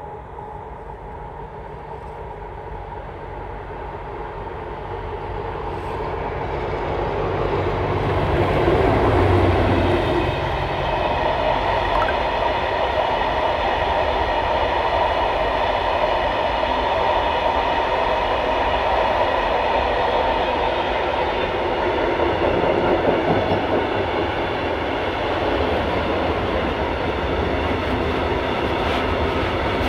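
Freight train led by a DE24000-class diesel-electric locomotive approaching and getting steadily louder, its engine loudest as it passes about nine seconds in. A long string of open-top freight wagons then rolls past, their wheels clattering steadily on the rails.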